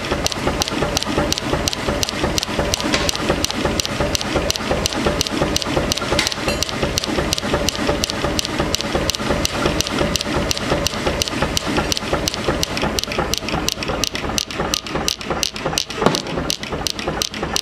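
Power hammer pounding a red-hot steel block in rapid, even blows, about five a second, with a steady hum underneath.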